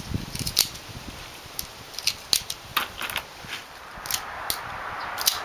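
Handling noise: a string of light, irregular clicks and taps, like small hard objects being handled.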